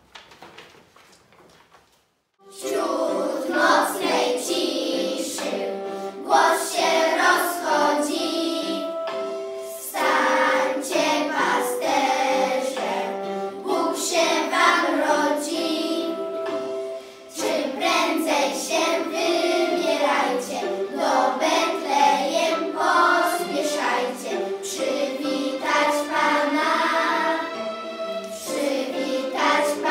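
A group of school children singing a Christmas carol together, starting after a short pause about two seconds in.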